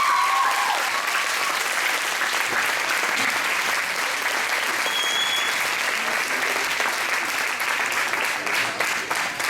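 Crowd applauding steadily at the end of a song, the last sung note dying away in the first second.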